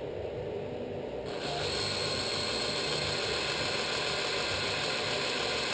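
Cordless drill with a 9/64 bit boring into the thin aluminum outer tube of a Showa closed-cartridge damping rod, drilling out a staked point that pins the rod-seal holder into its threads. The drill runs at a steady speed and grows louder and brighter about a second in as it bites.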